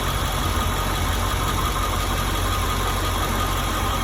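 International 7.3 V8 diesel engine idling steadily.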